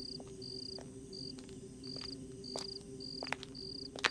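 Crickets chirping in a night ambience: short trilled chirps repeating evenly, nearly twice a second, with a few faint soft clicks, the sharpest near the end.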